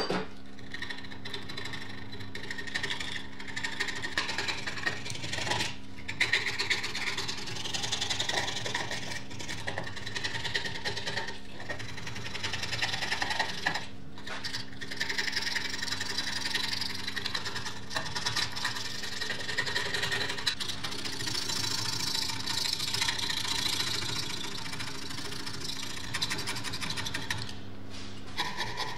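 A thin metal scraper blade scraping rust and old paint off a rusty steel oven plate in repeated strokes, stripping it down to bare metal.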